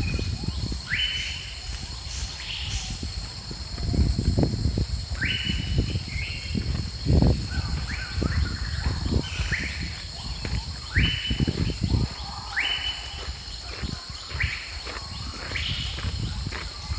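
A steady high insect drone with a bird calling over and over: a short rising call about every one to two seconds. Irregular low thumps and rumble run underneath.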